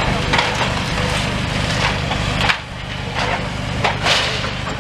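Demolition excavator's grab crunching through heaps of broken timber, splintering wood in several sharp cracks with the heaviest crunch a little before the end, over a steady diesel engine drone.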